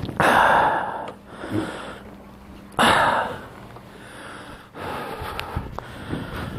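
A person's hard out-breaths close to the microphone: two loud puffs of breath, one at the start and one about three seconds in, with quieter breathing between.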